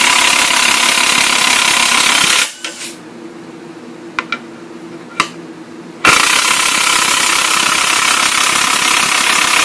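Cordless impact gun hammering as it spins a nut on a length of all-thread, drawing the bearings out of a Porsche 928 torque tube. It runs for about two and a half seconds, stops with a couple of clicks in between, then runs again from about six seconds in. The owner thinks the long rod is twisting and soaking up the gun's blows now that the middle bearing has been reached.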